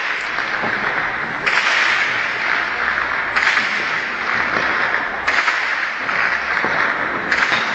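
Shelling: repeated blasts about one every two seconds, each starting sharply and trailing off into a long echoing wash.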